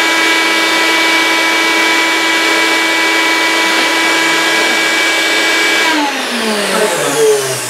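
Vacuum cleaner motor running steadily with a high whine, drawing suction through a vacuum-forming box to pull heated plastic sheet down over a canopy plug. About six seconds in it is switched off and winds down with a falling whine.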